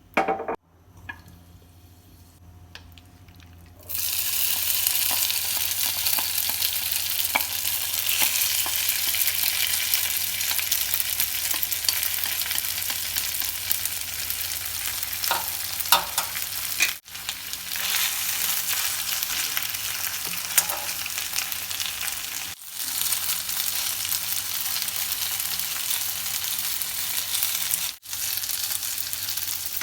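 Thin-sliced potato strips sizzling in an oiled frying pan, a loud steady sizzle that starts about four seconds in after a brief knock and a quiet stretch. The sizzle drops out briefly three times.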